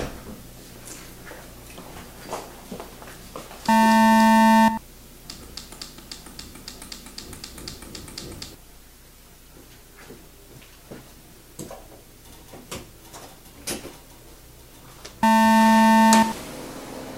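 A harsh electronic buzzer sounds twice, each a steady, low buzz about a second long, roughly eleven seconds apart, with faint clicks and handling noises in between.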